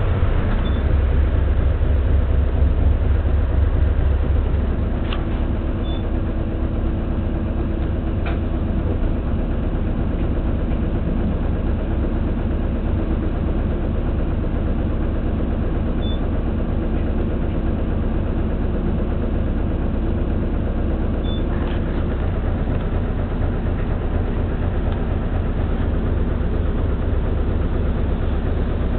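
City bus engine and road noise heard from inside the passenger cabin: a steady low rumble, a little louder for the first few seconds, with a few sharp clicks now and then.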